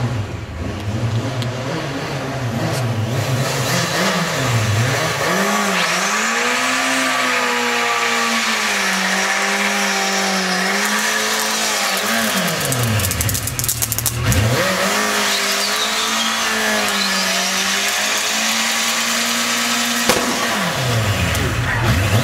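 Yamaha FJ1200's inline-four engine idling, then revved hard and held high in a burnout, its pitch wavering, with a hiss from the spinning rear tyre over it. The revs drop off briefly in the middle and pick up again. The engine settles back to idle near the end.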